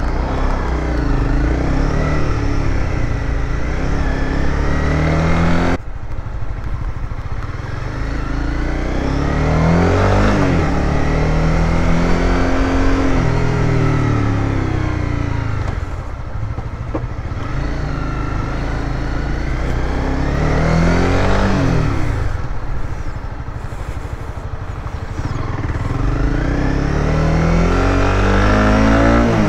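Honda CBR300R's single-cylinder engine under way, heard from the rider's seat, its pitch repeatedly climbing and dropping as the bike accelerates through the gears and slows again.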